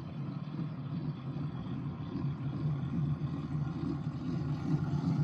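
Small work locomotive's engine running steadily while hauling a ballast train.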